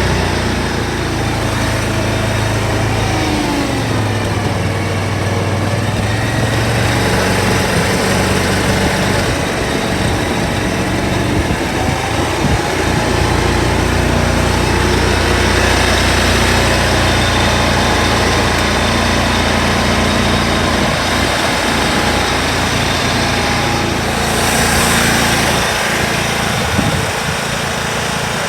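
2013 Dixie Chopper X-Caliber 74-inch zero-turn mower's engine running steadily, its pitch shifting a little in the first few seconds before settling.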